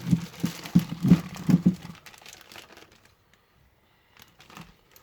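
Packaging being handled, crinkling and rustling, loudest in the first two seconds. A few faint rustles and clicks follow near the end.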